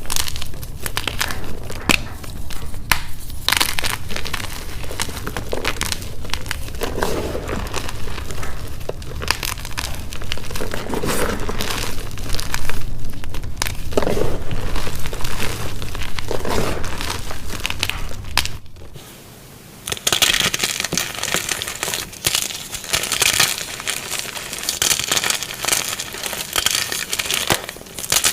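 Gym chalk being crushed and crumbled, a dense run of crunching and crackling. About two-thirds through it briefly drops away, then resumes as a finer, hissier crumbling.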